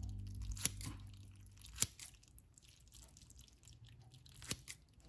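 Scissors snipping through a salmon egg skein: a handful of short, sharp snips at uneven spacing, the loudest a little before two seconds in and a quick pair near the end.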